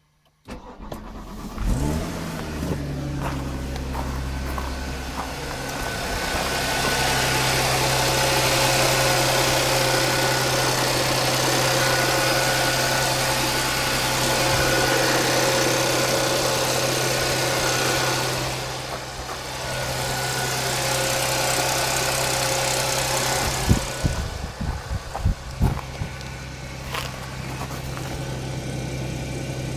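Audi A6 3.0 TFSI supercharged V6 cranking and catching on a cold start, then idling with a loud, even rushing noise laid over the engine hum: the strange cold-start noise in question. The rushing fades after about twenty seconds, a few sharp knocks follow, and the engine settles to a quieter idle.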